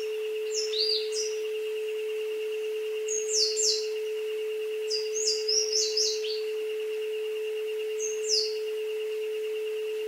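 A steady pure tone, with a fainter higher tone wavering above it, plays over a jungle ambience of birds. The birds give quick, high, falling chirps in short bursts about a second in, around three seconds, around five to six seconds, and near eight seconds.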